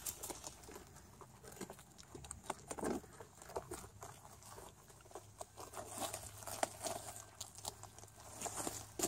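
Young domestic rabbits chewing on a whole head of cabbage: many small, irregular clicks of bites and leaf-tearing.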